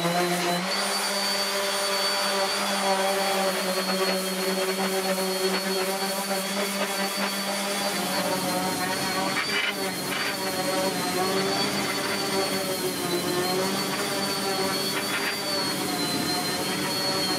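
Electric random orbital sander running steadily against the wooden axe handle, a motor hum with a thin high whine over it. The pitch steps up slightly about a second in, and the sander cuts off at the end.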